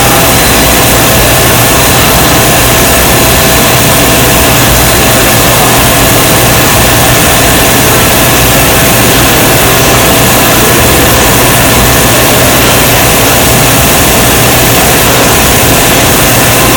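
CNC machine running steadily: a loud, unchanging noise with several steady tones held throughout.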